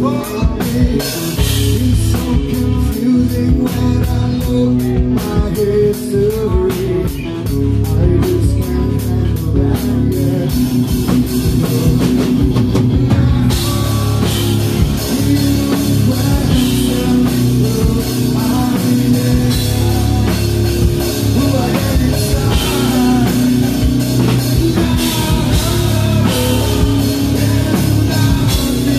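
Nu-metal band playing live: drum kit, bass guitar and electric guitar, with a singer on the microphone. In the first half the drums tick a steady beat over the bass. About halfway in, the full band comes in, denser and brighter.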